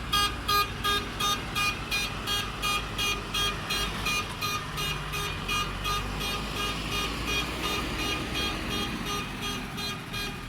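Rapid electronic beeping, short pitched pulses repeating evenly about four times a second, over a low steady engine hum.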